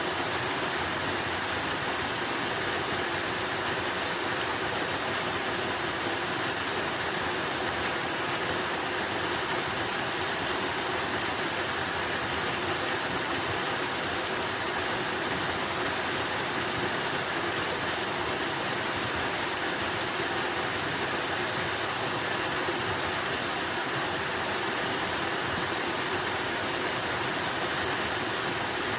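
Running water: a steady, even rushing that does not change.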